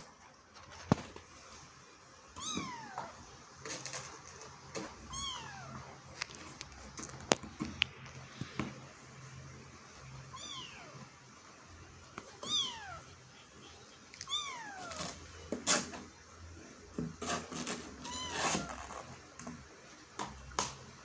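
Kitten mewing over and over, about six high, thin calls that each fall in pitch, with a few sharp clicks and knocks in between.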